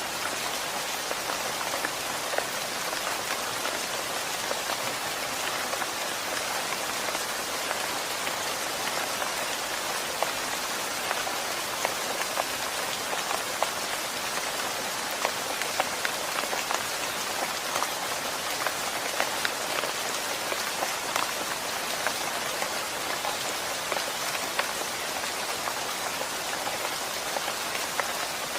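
Steady rainfall with many individual drops heard as short sharp ticks, even and unchanging throughout.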